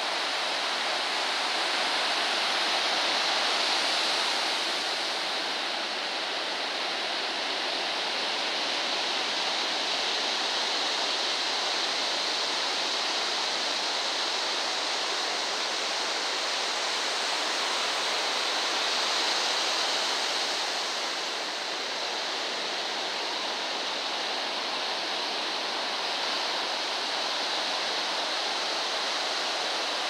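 Ocean surf breaking and washing up a sandy beach: a steady rush with no pauses, swelling a little a few seconds in and again about two-thirds of the way through.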